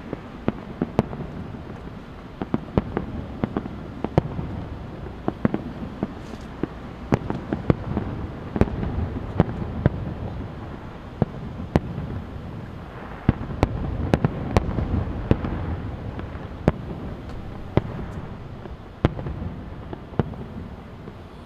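Aerial fireworks shells bursting at a distance: a steady run of sharp bangs, several a second at times, over a low rolling rumble that grows loudest a little past the middle.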